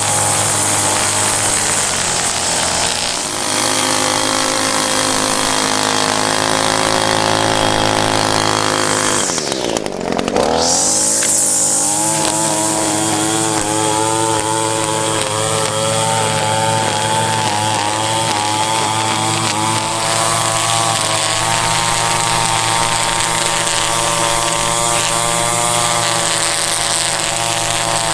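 Gas string trimmer's two-stroke engine running at speed. About ten seconds in it drops off sharply and then revs back up.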